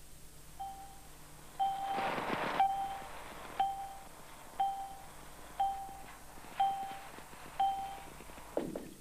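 Countdown beeps: a short electronic tone once a second, eight times. There is a burst of hiss about two seconds in and a quick falling swoop near the end.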